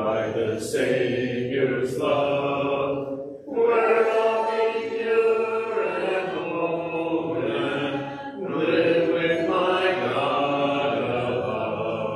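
Church congregation singing a hymn a cappella, many voices together with no instruments, in long held phrases with brief breaks for breath.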